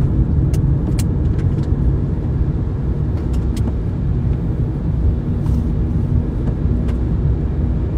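Steady low rumble of a car's road and engine noise heard inside the cabin while driving, with a few faint clicks.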